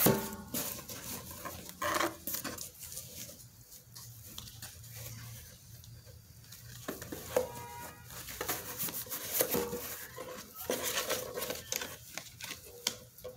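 Cardboard box being handled and rummaged by hand: scattered knocks, scrapes and rustles of cardboard.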